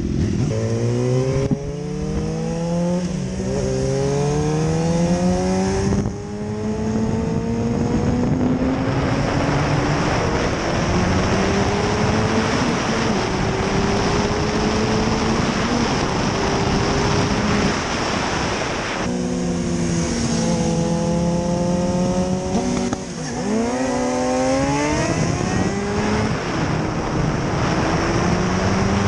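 2009 Suzuki GSX-R 750's inline-four engine pulling away hard through the gears, revs climbing and dropping back at each upshift. It runs through the stock muffler with the catalytic converter cut out. Wind noise on the microphone builds as speed rises.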